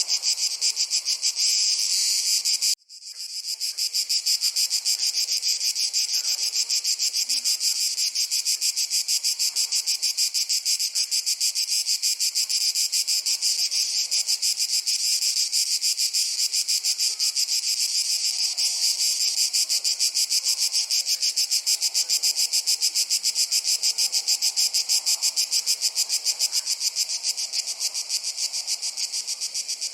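A dense chorus of crickets chirring in a fast, even pulsing at a high pitch. About three seconds in, it cuts out abruptly and swells back within a second.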